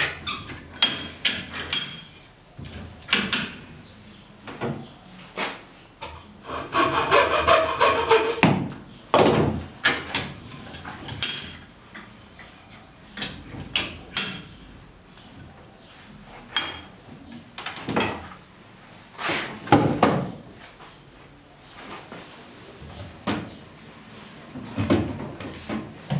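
Hand work on a wooden frame at a bench vise: a series of wooden knocks and clatter, with light metallic clinks from tools, and a stretch of a few seconds of rubbing against wood about seven seconds in.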